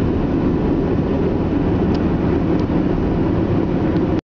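Steady drone of a car's engine and tyres heard inside the cabin while driving at speed on smooth asphalt.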